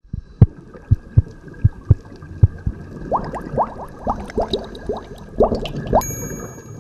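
Underwater bubble sound effects: a string of short, sudden low plops, then from about three seconds in a run of quick rising bubbly blips. A high, steady ringing tone comes in near the end.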